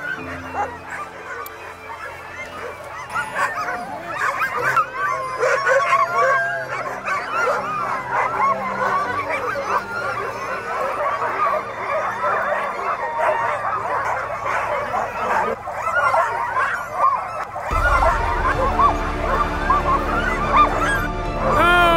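A chorus of many harnessed sled dogs barking and yelping over one another without a break.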